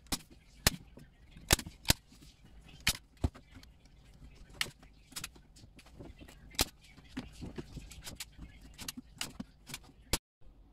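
Hand staple gun (tacker) firing staples through a plastic corrugated sheet into a wooden shoji frame: a series of sharp snaps at irregular intervals, about a dozen strong ones with softer clicks between.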